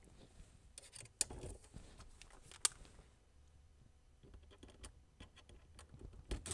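Quiet handling noise: light scrapes and ticks with two sharp clicks, about a second in and near the middle, as a steel mounting bracket is held against the wall and a cordless drill is brought up to it. Right at the end the drill starts to run.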